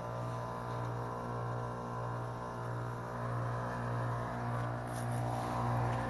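Outdoor unit of a 2003 Lennox Elite 1.5-ton heat pump running through its defrost cycle: the compressor hums steadily.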